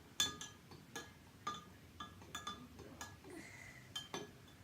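A utensil clinking against a bowl while slime mixture is stirred: sharp ringing taps at roughly two a second.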